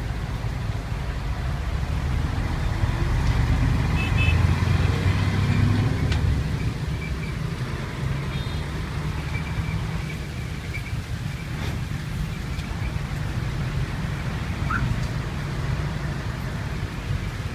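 Steady street noise: a low rumble of traffic with a general hiss, swelling a little about four to six seconds in, with a few faint short high tones over it.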